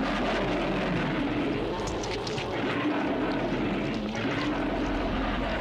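Film soundtrack playing a steady, dense roaring rumble with a faint low drone under it, from the movie's explosive climax.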